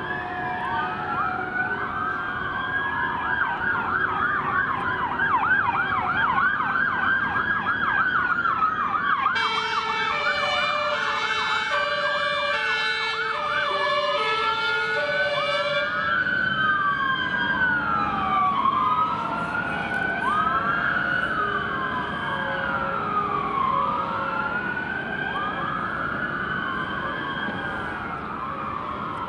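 Sirens of several fire engines on an emergency run: overlapping wailing sirens rising and falling out of step with each other. For about six seconds around the middle, they are joined by a siren alternating between two pitches.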